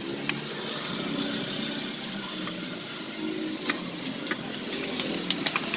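Several sharp metallic clicks and taps of hand tools on the starter motor and its mountings during refitting, over a steady background hum.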